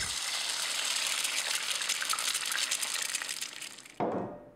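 Egg frying in hot oil in a pan, a dense crackling sizzle that fades out after about three and a half seconds. About four seconds in, a plate is set down on a table with a short clunk.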